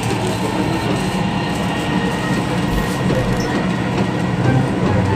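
Dubai Metro train running along the line, heard from inside the carriage: a steady low rumble of the train in motion.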